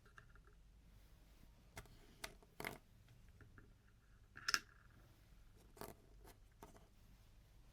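Sparse light clicks and taps of plastic toys and packaging being handled, about half a dozen spread out, the loudest about halfway through.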